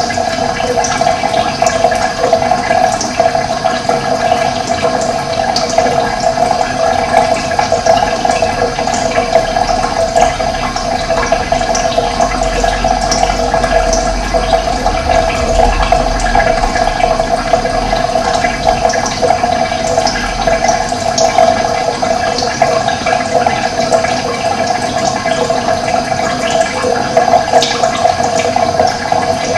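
Running water flowing steadily, with short high bird chirps scattered over it.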